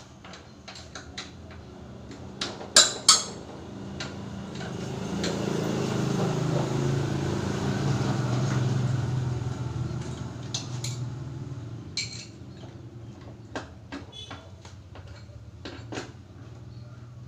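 Metal hand tools and engine parts clinking and clanking in scattered knocks, the loudest pair about three seconds in and another cluster near the end. A low hum swells and fades through the middle.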